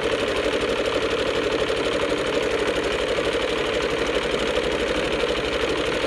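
Domestic electric sewing machine running steadily, stitching a seam through layers of cotton fabric with a fast, even needle rattle.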